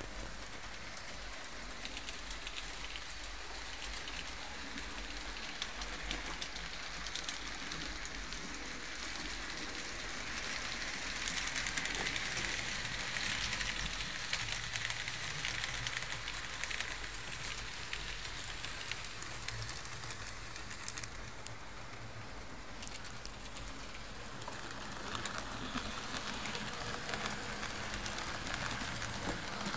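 Fleischmann H0 model trains running on metal track: a steady rattling whirr of small wheels and motors with fine rapid clicking, swelling louder for several seconds around the middle and again near the end.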